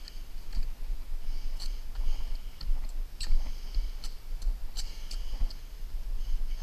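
Irregular clicks and crinkling rustles from hands working Grace Ice & Water Shield roofing membrane and its paper release backing against the roof boards.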